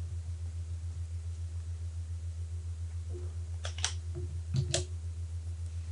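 A few short crackles and clicks about midway through from a YubiKey's plastic retail packaging being handled and opened, over a steady low hum.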